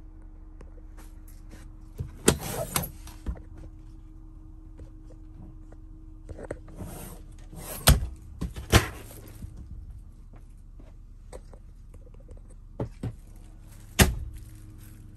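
Knocks, thumps and rustling from someone moving around and handling things inside a truck's sleeper cab: a sharp knock about two seconds in, two more around eight seconds, and one near the end, over a faint steady hum.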